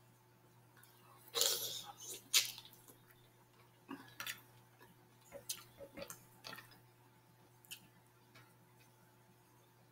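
Close-up eating sounds from a plate of steamed mussels: a short wet smacking sound about a second and a half in, then scattered light clicks of mussel shells being handled against each other and the platter, with soft chewing.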